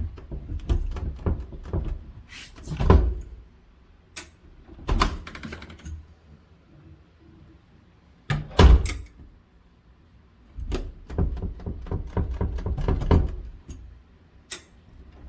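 Clicks, rattles and knocks from a door lock and its handle being worked, with two louder thunks, about three seconds and nearly nine seconds in.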